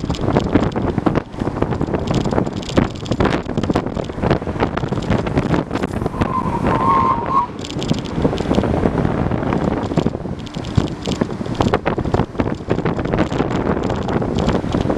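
Heavy wind buffeting the microphone over the rumble of longboard wheels rolling fast on rough asphalt during a steep downhill run, with a brief high squeal about halfway through.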